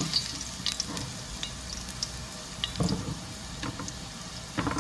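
Chopped onion and garlic sizzling in hot oil in a wok as they are sautéed, with a steady hiss and a few sharp knocks and scrapes of a utensil against the pan, clustered about three seconds in and near the end.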